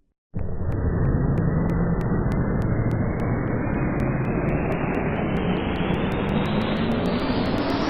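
A loud, steady rush of noise that starts abruptly just after the start and rises steadily in pitch, like a rising riser sound effect. Faint clicks come faster and faster, about three a second at first and six or seven a second near the end.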